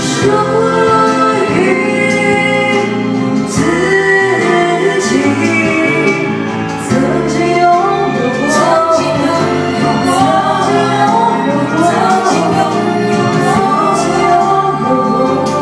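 A woman singing into a handheld microphone over a karaoke backing track, the music running steadily beneath her voice.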